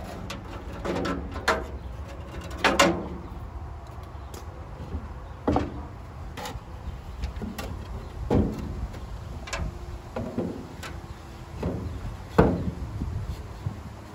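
Knocks, clunks and scrapes of a flat toe-board panel being handled and set into place against a car's body and frame: separate knocks a second or two apart, the loudest near the end.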